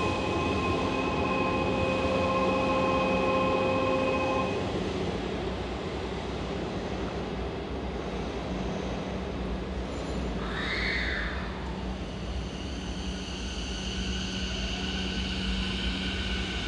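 Electric trains at an underground station platform: a steady low hum throughout, with a cluster of steady electronic tones for the first four seconds or so. About eleven seconds in a short tone rises and falls. Near the end comes the slowly rising whine of a Sanyo 6000 series train's motors as it pulls away.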